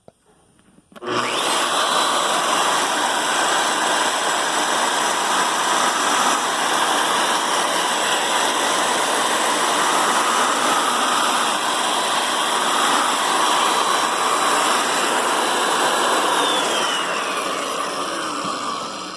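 Drill motor driving a carbide end mill starts about a second in and runs steadily, then winds down near the end with a falling whine.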